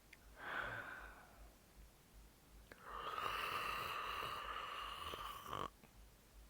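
A person yawning: a short breath about half a second in, then a long, breathy yawn from about three seconds in that stops abruptly.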